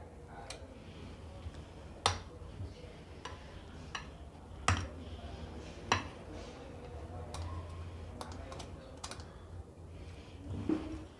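Stainless-steel trigger ice cream scoop scraping frozen ice cream out of a glass bowl: its release lever clicking and the metal scoop tapping the bowl and china plate, about ten sharp clicks spread irregularly, the loudest about two, four and a half and six seconds in, over a faint steady low hum.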